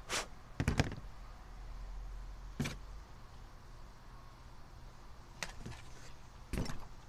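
Short knocks and clicks of a four-barrel carburetor's metal parts being handled, with a double knock about a second in and a louder clunk near the end as the carburetor body is tipped on the bench.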